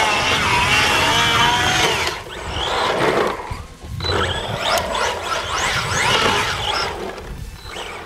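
Arrma Vendetta 1/8 RC car's brushless motor whining in several bursts of throttle, its pitch sweeping up and down, with the tyres spinning and sliding on wet asphalt as the car does donuts.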